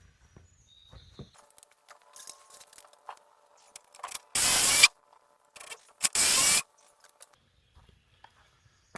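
Cordless impact driver driving a lag bolt into timber in two short bursts about a second and a half apart, the second one tightening it down.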